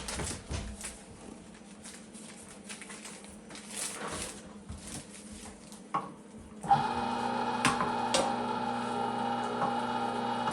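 Light clatter and handling clicks, then about two-thirds of the way in a Cabela's Carnivore electric meat grinder switches on suddenly and runs with a steady motor hum and whine.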